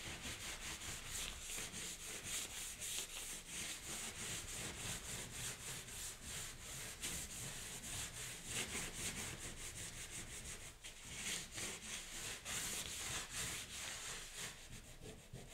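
Paper towel scrubbing back and forth over a wet, freshly sprayed acrylic-ink glaze on a painting on paper, a steady run of quick rubbing strokes, lifting the glaze off to show the layers beneath.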